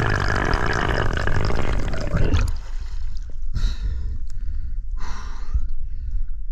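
Rushing water noise on an underwater camera as a freediver swims up, cutting off sharply about two and a half seconds in as he breaks the surface. Then come two heavy gasping breaths about a second and a half apart: recovery breathing after a breath-hold dive.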